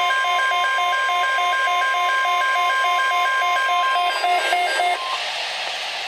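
Weather radio alert: a steady single-pitch warning tone over pulsing alarm beeps from the Midland weather radios, about two or three beeps a second. Both stop about five seconds in, leaving a brief hiss of radio static.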